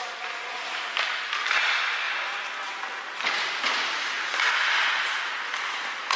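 Ice hockey play: skate blades scraping and carving the ice in swelling waves, with a few sharp stick or puck knocks, the clearest about a second in.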